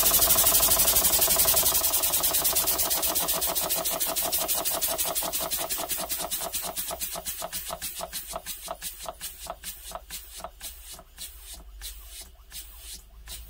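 Model single-cylinder horizontal mill engine running on compressed air, its exhaust puffing in a steady beat that slows and grows quieter as the air is turned down, until it runs at only a few beats a second, about as slow as it will go.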